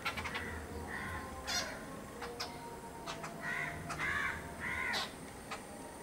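Three harsh, arched calls in quick succession from a crow-family bird, starting about three seconds in, with several sharp clicks before them.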